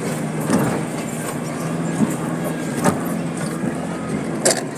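4x4 vehicle engine running steadily as it crawls over a rough, rutted dirt track, with several sharp knocks and rattles from the bumps.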